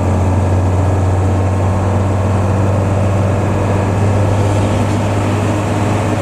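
Intercity bus running along the highway, heard inside the cabin: a steady, loud low engine drone under road noise, with no change in pace.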